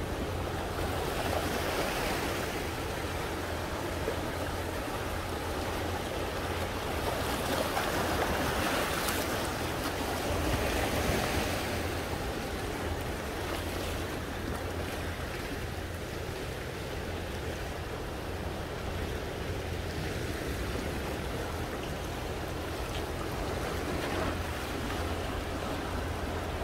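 Sea waves breaking and washing over rocks along the shore: a continuous rushing surf that swells louder a few times, around two, eight and eleven seconds in.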